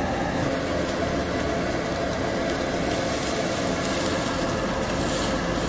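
Galbi sizzling steadily on a tabletop restaurant grill, a continuous hiss over a constant low hum.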